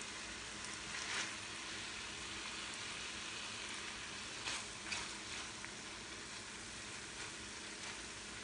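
Pieces of leftover rotisserie chicken frying in a stainless steel sauté pan, a steady sizzle. It gets louder for a moment about a second in and twice around the middle as the pieces are stirred and turned.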